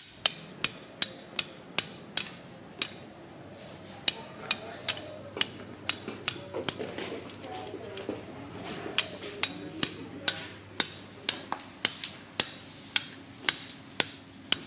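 Repeated sharp knocks, about two a second, of a tool striking the giant alligator gar on a chopping block, with a brief pause about three seconds in.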